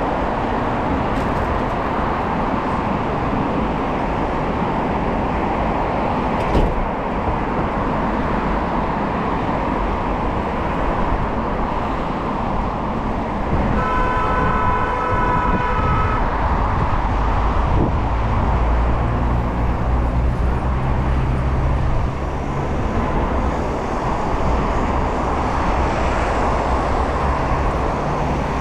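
Steady city road traffic heard from a moving bicycle. About halfway through, a vehicle horn sounds for about two seconds, and afterwards a passing vehicle's engine hums low for a few seconds.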